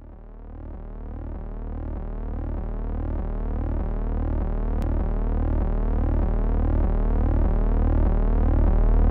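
Synthesized electronic tones: a low steady drone pulsing about every two-thirds of a second, with repeating gliding tones above it, fading in and growing steadily louder.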